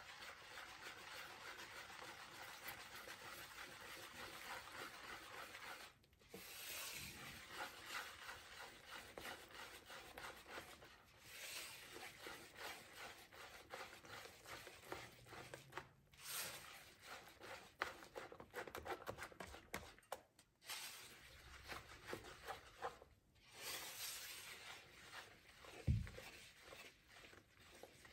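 Wire whisk beating flour into a batter of eggs, sugar and melted butter in a bamboo bowl: a steady scratchy swishing and scraping against the bowl, broken by a few short pauses, with one dull knock near the end.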